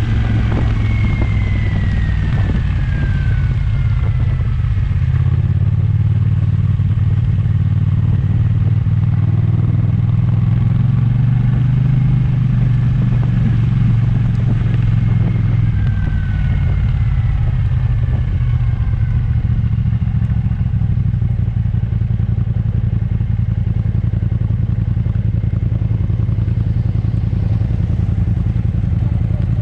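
Kymco AK550 maxi-scooter's parallel-twin engine running at road speed, a steady low drone, with tyre and wind noise on a wet road. A thin whine falls in pitch twice, near the start and about halfway through.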